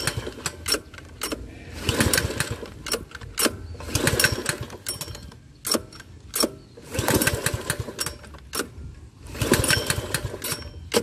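Duracut 820 lawn mower's 159cc engine being pull-started four times, about every two and a half seconds. Each pull gives about a second of cranking and sputtering, and the engine fails to catch.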